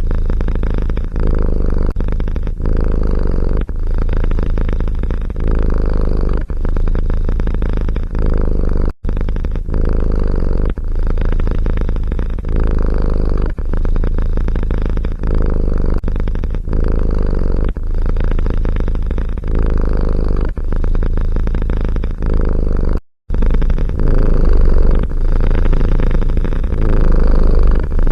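Domestic cat purring loudly and close up, a continuous low rumble that swells and dips about once a second. There are two brief dropouts, about a third of the way in and again near the end.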